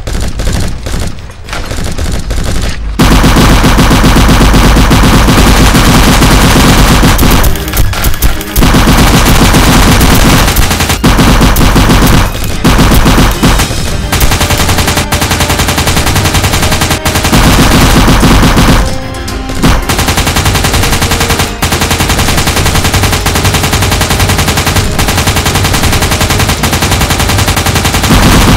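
Rapid automatic gunfire sound effects. There are a few scattered shots at first, then nearly continuous bursts of machine-gun fire from about three seconds in, broken by a few short pauses.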